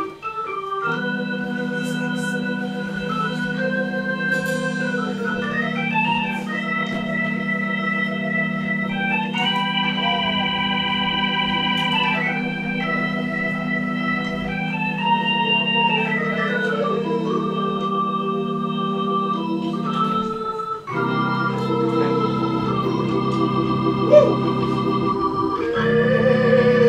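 Stage keyboard playing an organ sound alone: slow sustained chords with a melody line moving above them, the chord shifting lower about twenty-one seconds in and again near the end.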